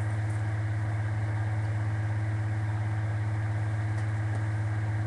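A steady low hum with a faint hiss behind it, unchanging, with no distinct knocks or clicks.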